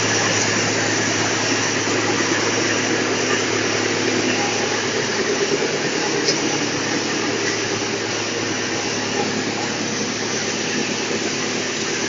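Drum wood chipper and its belt conveyor running steadily: a constant, unbroken machine drone with a low hum underneath.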